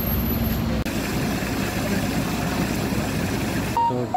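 Steady mechanical running noise of a fuel dispenser pumping diesel through the nozzle into a truck's tank, with a brief break about a second in and a short high tone near the end.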